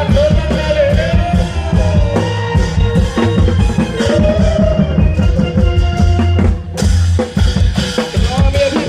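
Isan klong yao drum troupe music played loud through a sound system: a driving drum beat with a gliding melody line over it. The low drums drop out briefly about seven seconds in.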